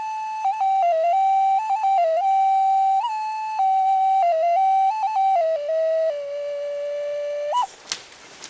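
Flute playing a slow melody of held notes that step up and down, ending sharply about seven and a half seconds in, after which a faint crackling begins.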